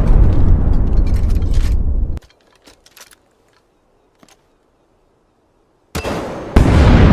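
Loud crackling, rumbling noise like an explosion or gunfire that cuts off suddenly about two seconds in. A few faint clicks follow in near silence, then a second loud burst of the same kind starts near the end.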